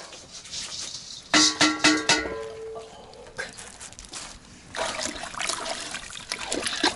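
Dishes and cutlery clinking with a ringing clatter about a second in, then liquid pouring and splashing near the end, as the chicken broth is served.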